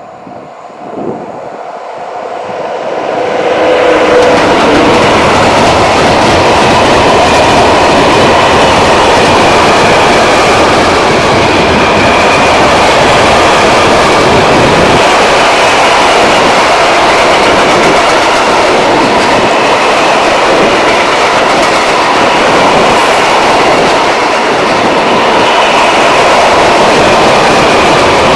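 Freight train passing close by: a ČD Cargo class 163 electric locomotive followed by a string of Eas and Eaos open wagons, wheels running on the rails. It grows loud over the first four seconds or so, then stays loud and steady as the wagons roll past.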